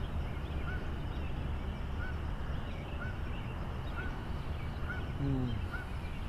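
Quiet outdoor ambience with a steady low rumble, a faint short animal call repeating about once a second, and a lower call sliding down in pitch about five seconds in.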